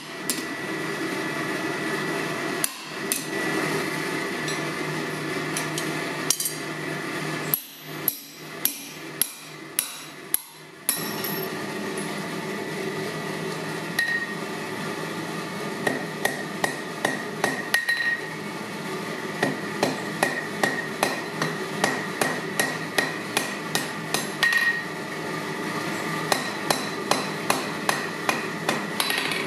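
Blacksmith's hand hammer striking hot steel on an anvil, with a steady hum underneath. A few single blows come first, then about six evenly spaced blows around eight to ten seconds in, then a long run of quicker strikes through the second half.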